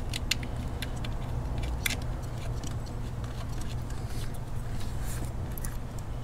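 Small scattered clicks and taps as a 10 mm nut is threaded by hand onto the coil pack's stud, over a steady low hum.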